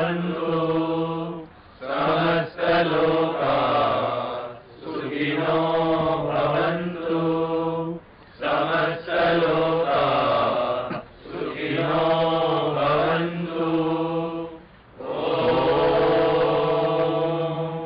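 Male voices chanting a mantra, phrases of two to three seconds each broken by short pauses for breath.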